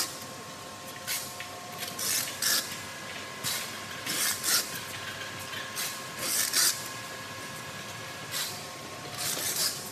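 Automatic sliding gate opener's electric motor running with a steady whine as it drives the metal gate along its track. Short rasping hisses come and go over it about once a second.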